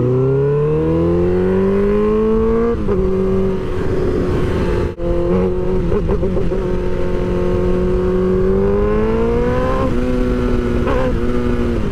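Suzuki GSX-R1000 inline-four engine accelerating under way: its pitch rises for the first few seconds, then drops with an upshift. After a brief break it holds a steady note, climbs again and drops with another shift about ten seconds in.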